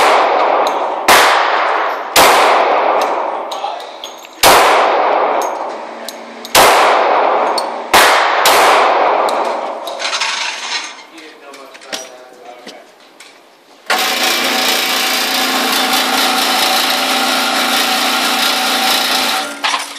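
Glock 20 pistol firing 10mm Auto hollow-point rounds, seven shots spread over about nine seconds, each ringing out in the enclosed concrete range. Then the range's target carrier motor runs steadily for about five seconds, bringing the paper target back up the lane.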